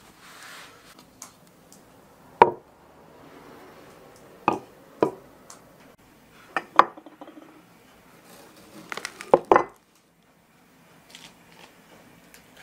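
A towel rubbing briefly at the start, then a series of sharp knocks and clinks of hard objects set down on a wooden workbench, the loudest about two and a half seconds in and a quick cluster near the end.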